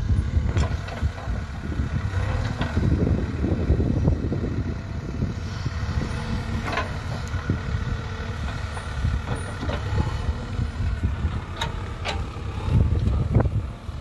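JCB 3DX backhoe loader's diesel engine running under load as the rear backhoe bucket drags through loose soil, a steady low rumble. A few sharp knocks from the bucket and its linkage sound through it, several of them near the end.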